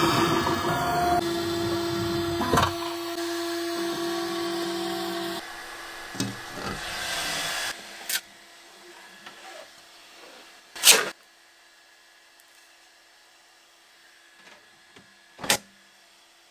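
Bambu Lab X1 Carbon 3D printer running, its motors giving steady tones that change pitch every second or so. Then it falls quiet but for a faint hum, and a few sharp clacks follow as the build plate is taken out and handled, the loudest about eleven seconds in.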